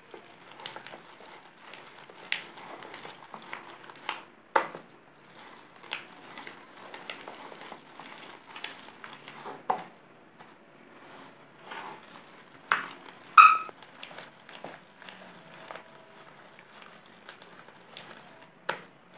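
Urad dal paste being beaten by hand in a stainless steel bowl to whip air into it: soft, wet squishing with irregular knocks of the hand against the bowl. About two-thirds of the way through comes a louder, short ringing clink off the steel bowl.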